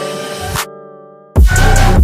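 Background music: held synth notes break off about two-thirds of a second in, a single tone fades, then a loud electronic beat with heavy bass comes in about a second and a half in.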